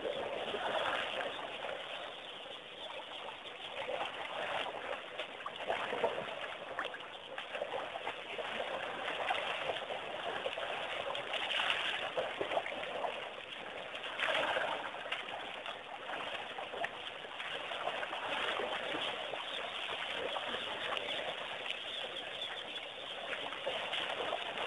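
Wet mud and water sloshing and trickling as a baby elephant wallows in a mud hole, a constant fine crackle with a few louder swells, with birds calling.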